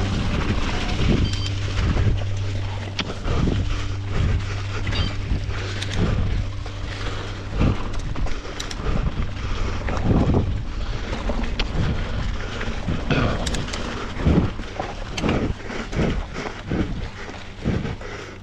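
Wind buffeting the microphone while a mountain bike rides over rough trail, with irregular knocks and rattles from the bike hitting bumps.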